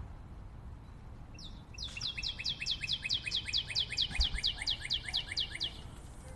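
A rapid, even series of high chirps, about six a second, like a small bird's trill. It starts about a second and a half in and stops shortly before the end.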